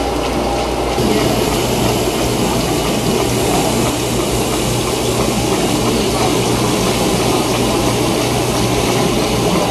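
Model Fourdrinier paper machine running: a steady mechanical drone with a low hum, mixed with running water from the wet wire section. The sound shifts slightly about a second in.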